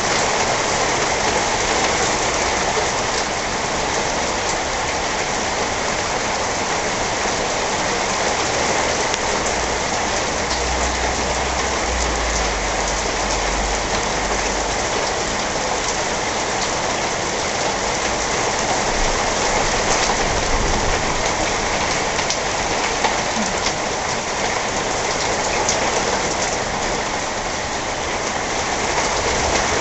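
Heavy thunderstorm rain falling steadily in a squall line, with a low rumble for a few seconds about ten seconds in.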